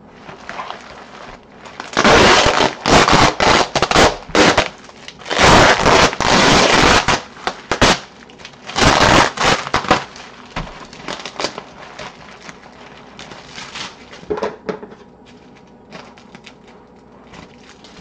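Packing tape and bubble wrap being pulled and torn off a package by hand: loud crackling, ripping bursts of a second or two, then softer crinkling.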